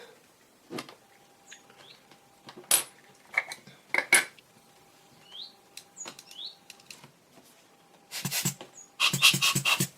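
Small metal tools and lens parts clicking and clinking while a vintage Pentax-M 28mm f/2.8 lens is reassembled. Scattered single taps give way to two quick runs of rapid clicks near the end.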